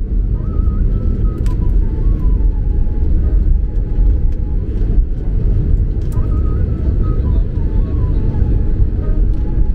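Steady low rumble of an airliner's jet engines and rolling wheels heard from inside the cabin as it moves along the runway. Over it, a faint tune of a few falling notes plays twice.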